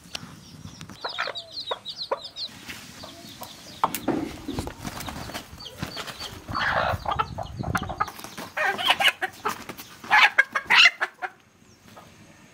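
Country rooster tethered to a post clucking and squawking as it flaps and struggles, with the loudest calls coming about nine to eleven seconds in.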